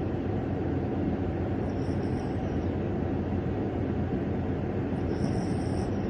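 Dog snoring in its sleep: a steady low rumble, with a faint high whistle twice, about three seconds apart.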